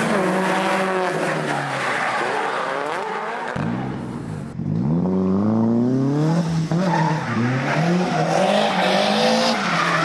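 Drift cars' engines revving hard, the pitch climbing and dropping again and again, over tyres skidding and squealing. The sound changes abruptly about a third of the way in, and a long rising rev follows.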